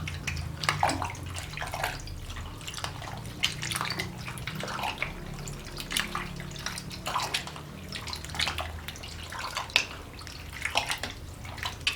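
A ladle stirring a bowl of fruit-cocktail drink (es buah): liquid sloshing and splashing in irregular strokes as the fruit pieces and jelly are turned through the milky syrup.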